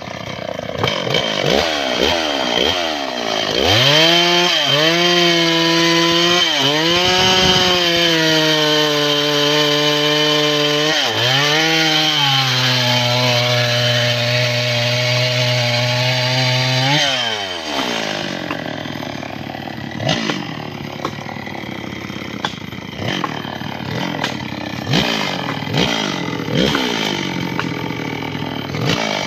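Stihl 070 two-stroke chainsaw blipped a few times, then held at full throttle for about thirteen seconds as it cuts through a large mahogany log, its pitch sagging slightly under load. It then drops back to idle, with several short throttle blips.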